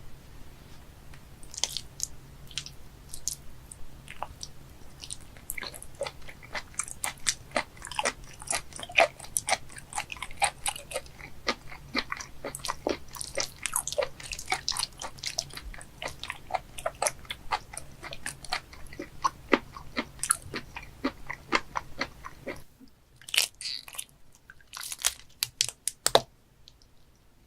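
Close-up chewing and biting of raw live octopus (sannakji): a dense, irregular stream of wet clicks and crunches. The chewing thins out about 23 seconds in, and a few louder clicks follow.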